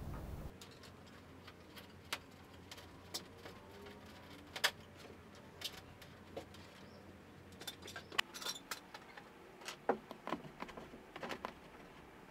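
Skewers being pushed and twisted through rigid foam board: faint, irregular small clicks and crackles, a little denser in the second half.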